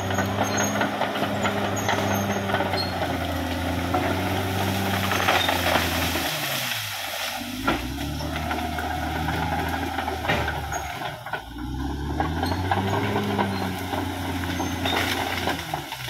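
Caterpillar D6R XL bulldozer's diesel engine running under work, its note dropping twice and climbing back up, with scattered knocks.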